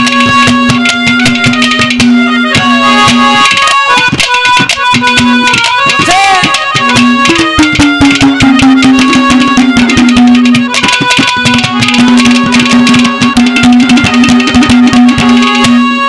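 Instrumental interlude of live Haryanvi ragni accompaniment: a fast, busy hand-drum rhythm under a long held melody note that slides down in pitch about seven and a half seconds in.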